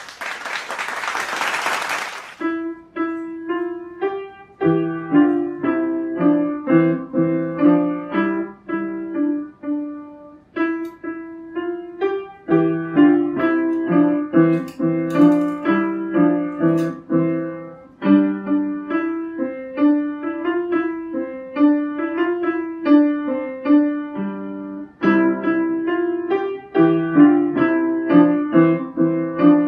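A child playing a simple beginner piece on an upright piano: a melody of separate notes in the middle register over a lower part, with short breaks between phrases. It is preceded by a brief burst of hiss-like noise at the very start.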